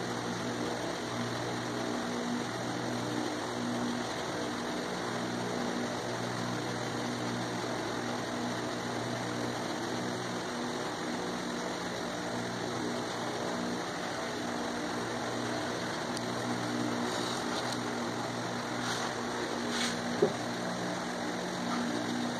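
A steady mechanical hum over a constant hiss, with a few faint scratchy strokes late on and one sharp tick near the end.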